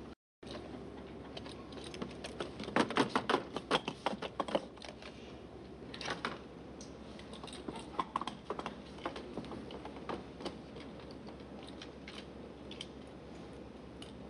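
Irregular light clicking and clattering of a marionette's hands on a miniature piano's keys, a quick flurry a few seconds in, then scattered taps.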